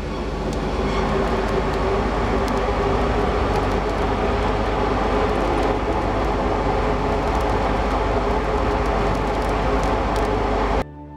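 Forge fire under forced air, running with a steady loud roar and rumble while it heats a borax-fluxed, layered steel billet for forge welding. The sound cuts off suddenly near the end.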